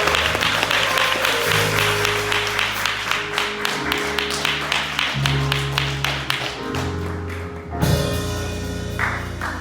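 Upbeat gospel praise music: sustained bass notes shifting pitch every second or so under a fast, steady percussive beat.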